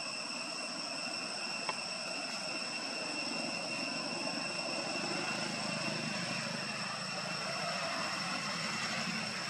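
A vehicle passing on the road, its low rumble swelling through the second half, over a steady high-pitched insect drone.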